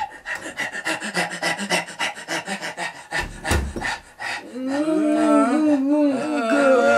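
Quick, raspy, rhythmic panting breaths with a low thump past the middle, then several voices moaning and howling together, wavering in pitch and getting louder.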